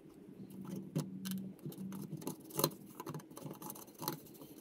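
Scattered light metallic clicks and taps as the oil strainer cover plate of an air-cooled VW engine is fitted back over the crankcase studs by hand, over a faint steady hum.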